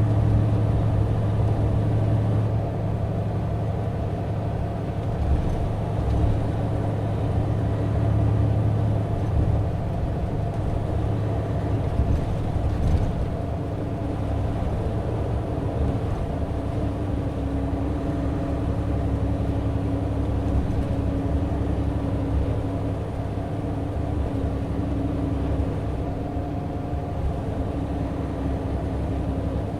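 Mitsubishi Fuso Aero Ace coach running steadily at cruising speed: a continuous low diesel drone with a few steady hums over it, and tyre and road noise.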